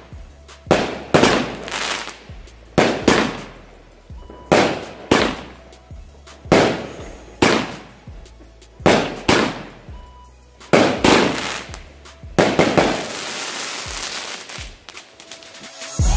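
'Blow Out' consumer firework battery (cake) firing a rapid run of shots, each a sharp bang trailing off quickly, spaced unevenly about half a second to a second and a half apart. Near the end the shots run into a dense crackle lasting about two seconds.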